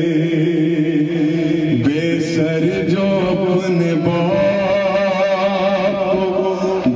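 Noha, a Shia lamentation chant, sung by a male voice in long held notes that waver and bend slowly in pitch.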